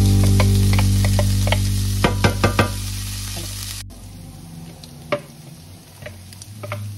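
Diced bacon frying in oil in a nonstick pan, with a wooden spatula tapping and scraping as food is pushed off a metal tray into the pan. Soft background music fades out over the first few seconds. After a sudden cut about halfway, the frying is quieter, with a few light taps as chopped onion is scraped in.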